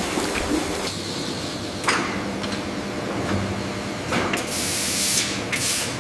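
A steady machine hum broken by a few sharp clicks and knocks, then two loud hisses of spray close together near the end.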